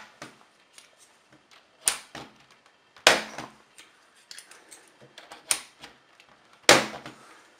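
Plastic keycaps on a Genius KB-G265 keyboard clicking as they are worked off and onto their stems with a key puller: four sharp clicks, with smaller ticks and rattles between them.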